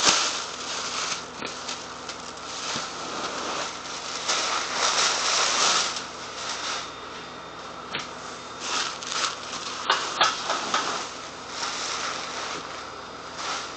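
Packing material rustling and crinkling in irregular bursts as parts are unpacked, with a few sharp knocks, a couple of them close together about ten seconds in.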